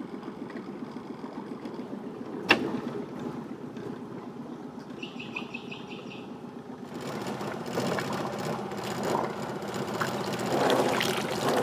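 Small outboard motor idling steadily. There is one sharp knock about two and a half seconds in, and a short run of bird chirps, about four a second, near the middle. From about seven seconds in come splashing and rattling as a wet crab pot and its rope are hauled aboard.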